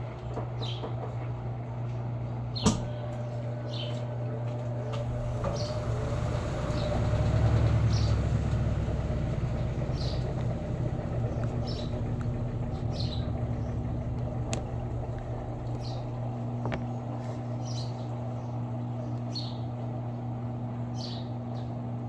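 Electrolux Essential Care 11 kg top-load washing machine spinning its basket: a steady motor hum that swells for a few seconds about six seconds in, then settles. Short high chirps repeat every second or so over it, with one sharp click near the start.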